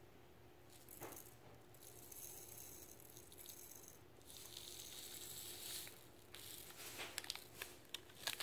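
Faint rustle of a packet's contents being shaken into a small plastic toy toilet, with a few light clicks near the end.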